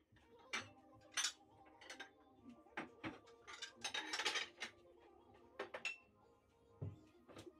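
Light clinks and knocks of glass dishes and cutlery being handled, scattered and irregular, the loudest about a second in and around four seconds in.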